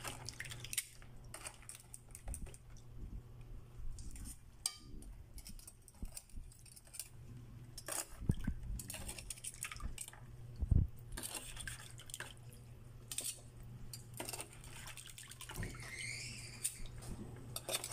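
Water sloshing and dripping in a plastic basin as live crabs are washed, with irregular sharp clicks and clatters from hard shells and tools knocking in the basin.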